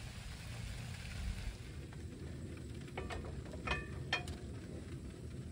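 Steady rain hiss over a low rumble. About three seconds in comes a quick handful of sharp metallic clinks with a short ring, as a cast iron griddle is handled on a camp stove's grate.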